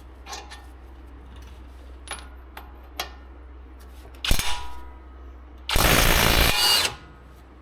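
Impact wrench hammering for about a second near the end, breaking loose a brake caliper bracket bolt. Before it there is a sharp metal clank with a short ring, and a few light clicks of tool and metal.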